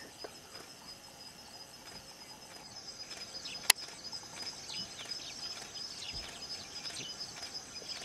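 Insects chirping steadily in the grass, with scattered short bird chirps, and a single sharp click a little before halfway through.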